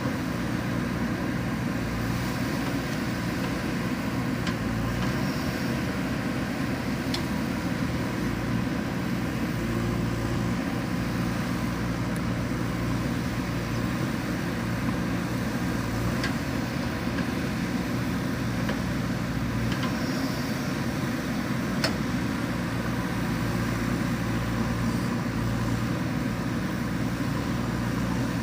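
Diesel engine running at a steady speed, with a few brief sharp clicks or knocks.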